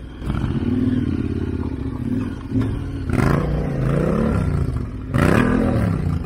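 KTM 1290 Super Adventure R's V-twin engine running at low speed. It is given two short bursts of throttle, the pitch rising and falling back, about three and five seconds in.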